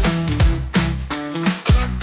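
Background rock music: electric guitar over a steady, driving drum beat.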